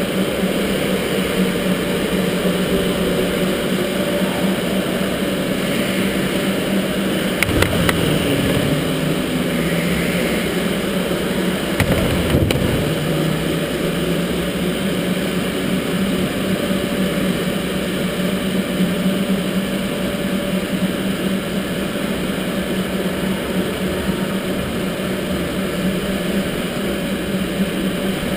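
Electric go-kart running at speed: a steady motor whine over tyre and air noise. Two short knocks, about seven and a half and twelve seconds in.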